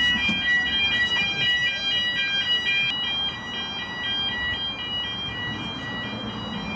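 Electronic fire alarm sounding: high beeping tones that keep stepping up and down in pitch, a little quieter from about halfway through.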